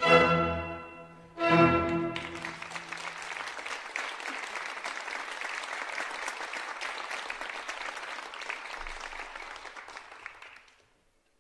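Two closing chords from an orchestral ballet score, then a theatre audience applauding for about eight seconds. The applause fades out near the end.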